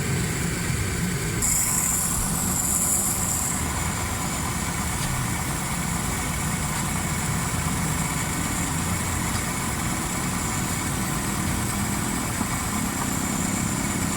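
Suzuki Cultus three-cylinder engine idling steadily.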